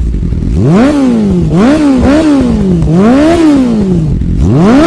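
Motorcycle engine revved about five times in quick succession, the pitch climbing and dropping with each blip of the throttle.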